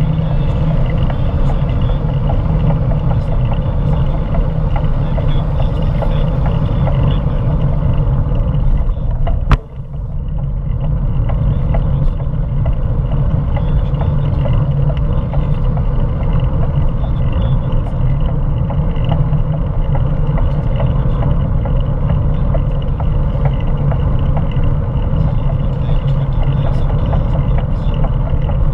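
Steady rumble of wind and road noise on a bicycle-mounted camera while riding along a street, with one sharp click about ten seconds in.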